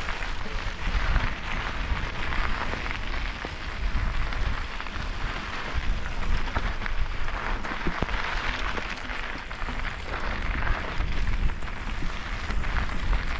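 Mountain bike rolling down a dry, gritty dirt trail: tyres crackling and crunching over grit and small stones, with scattered small knocks from the bike, over a low rumble of wind buffeting the microphone.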